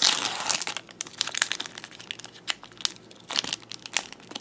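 Foil Yu-Gi-Oh booster pack wrapper crinkling and crackling as it is handled and pulled open, with a denser rustle at the start and scattered sharp crackles after.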